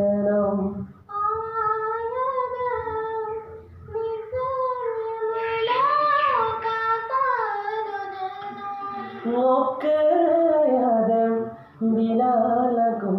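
A man and a girl singing a slow song in turn, without accompaniment. His lower voice ends about a second in, then she sings long held notes that slide up and down, and his voice comes back near the end.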